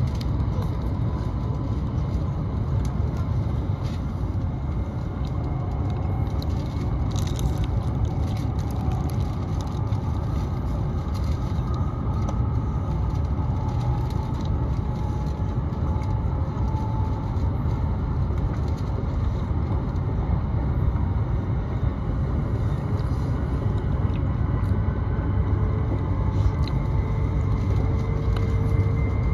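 Cabin noise of an E7-series Shinkansen accelerating: a steady low rumble and rush, with a faint motor whine slowly rising in pitch.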